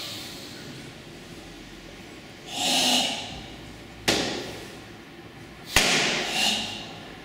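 Two sharp smacks of a hand striking a bare torso, about a second and a half apart, with loud forceful hissing exhalations before and after them: karate body-conditioning strikes taken on a tensed body.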